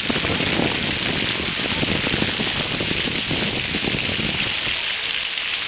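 Water jets of a pavement fountain shooting up and splashing back onto wet stone paving: a steady hiss of falling water.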